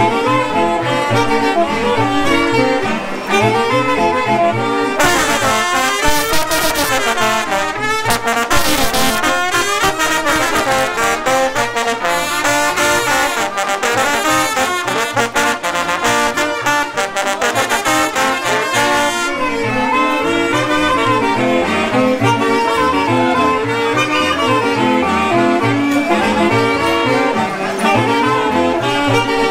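Live brass and saxophone band playing a traditional arrieros dance tune. For about fourteen seconds in the middle, a dense rattling noise lies over the music.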